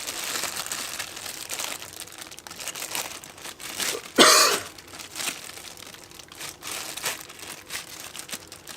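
Plastic packaging crinkling and rustling as a new tool is unwrapped by hand, with one louder rip or crackle about four seconds in.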